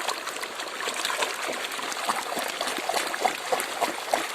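Water trickling and splashing as a mud-caked toy truck is washed by hand in flowing water, with many small irregular splashes.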